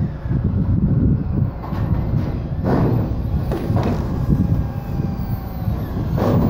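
Wind buffeting the microphone with a loud, uneven low rumble. Three brief louder noises stand out, about three, four and six seconds in.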